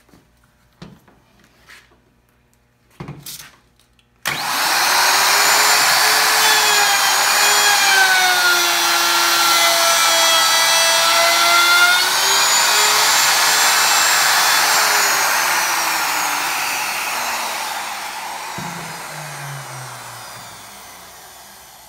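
A few light knocks, then a Porter-Cable router starts abruptly about 4 seconds in and runs with a loud high whine as its bearing-guided bit cuts a profile along the edge of a cherry board, its pitch sagging slightly in the middle. About two-thirds of the way through, it is switched off and winds down, the whine falling slowly in pitch and fading.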